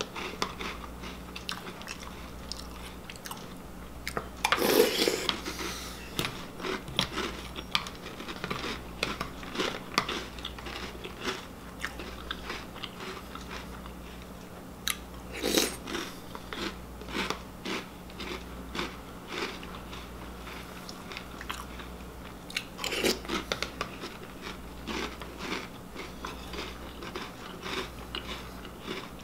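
Close-up crunching and chewing of a mouthful of Reese's Puffs cereal, with a metal spoon clicking and scraping against a plastic bowl. Louder crunching bites come about five, fifteen and twenty-three seconds in.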